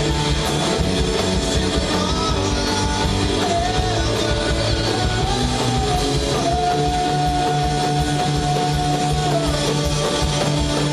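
Live rock band playing, with guitar over a steady bass and drum beat; a lead line bends, then holds one long note for about three seconds.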